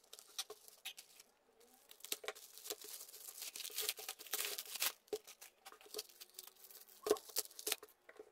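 Plastic poly mailer crinkling and being torn open by gloved hands, with a long ripping stretch from about two to five seconds in, then the plastic air-cushion packaging inside crackling as it is handled. There is a single knock about seven seconds in.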